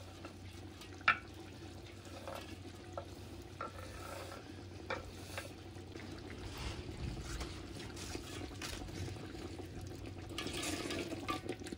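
Spoon stirring thick vegetable curry gravy in a handi pot, with soft scraping and a few sharp taps of the spoon on the pot, over a low steady hum.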